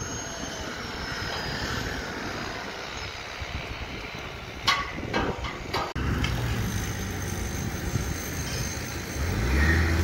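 Construction-site noise with a few sharp metal clanks. Then a wheel loader's diesel engine runs, a low steady hum that gets louder near the end.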